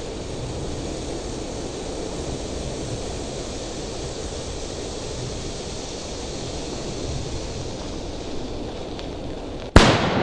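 A firecracker burning on the ground with a steady rushing hiss, then a single loud bang near the end, followed by a rolling echo.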